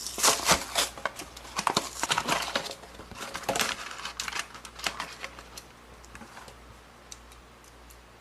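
Plastic crinkling and clicking as it is handled, dense for about five seconds, then only a few faint ticks.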